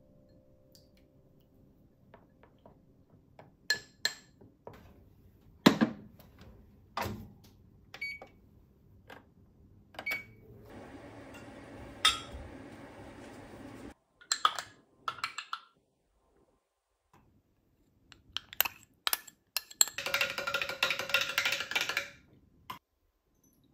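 A metal spoon clinking against glass bowls and a glass measuring jug: scattered single clinks, a steady hum for about three seconds in the middle, then rapid stirring in the glass jug, a quick run of clinks for about two seconds near the end.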